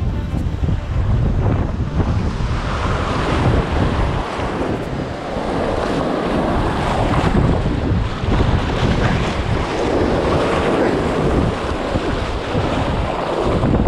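Surf washing and breaking around the legs in shallow water, swelling every few seconds, over a heavy wind rumble on the microphone.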